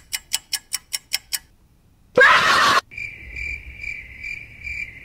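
A quick run of about seven sharp clicks, then a brief loud rush of noise, then crickets chirping in a steady, evenly pulsing trill for the last two seconds.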